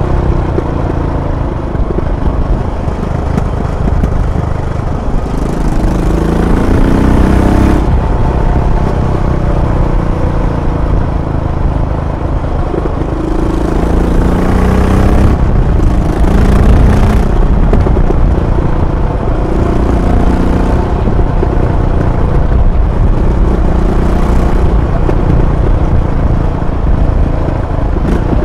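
Royal Enfield Bullet 500's single-cylinder four-stroke engine and exhaust pulling on the road, its pitch rising and dropping back several times as it accelerates through the gears, with bursts of wind noise.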